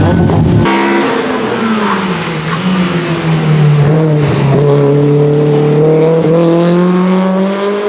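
BMW 2002 racecar's four-cylinder engine running hard under load. Its pitch dips briefly twice around the middle, as at gearshifts, then rises slowly and steadily as it pulls.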